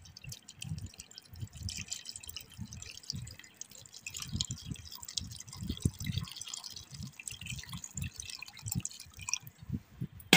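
Water poured from a cup into a steel pot of soaked dried peas, splashing over the peas, with soft low thuds throughout. The pouring tails off about nine seconds in.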